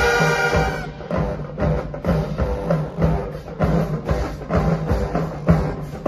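HBCU marching band playing in the stands: the horns end a held chord about a second in, and the drumline carries on with a steady percussion beat.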